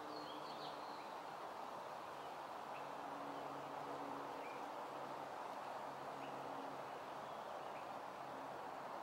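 Steady outdoor background noise with small birds chirping faintly: a quick cluster of high chirps about a second in, then a few scattered single chirps, over a faint low hum.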